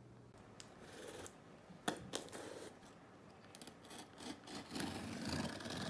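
Packing tape on a cardboard box being slit with a thin pointed tool, scraping along the seam. A few sharp clicks of handling come first, then a scraping, rubbing noise that grows louder toward the end.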